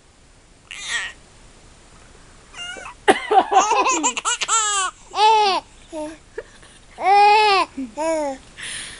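Six-month-old baby laughing and squealing in high-pitched arching bursts, set off by her sister's short breathy coughs about a second in and just before the end. The longest, loudest run of laughter comes between about three and five seconds in, with more squeals around seven and eight seconds.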